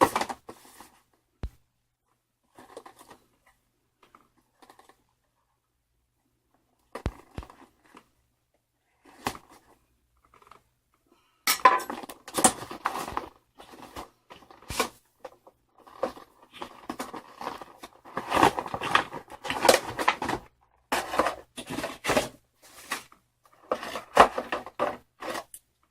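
Game controller packaging being handled and opened: a few scattered clicks and rustles, then from about halfway a busy run of plastic crinkling, tearing and clattering.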